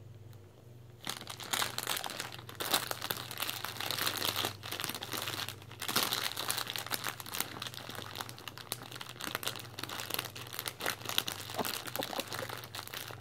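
Foil-lined snack-chip bag crinkling and rustling in quick, irregular bursts as a Norwegian Elkhound pushes his muzzle around inside it after crumbs, starting about a second in.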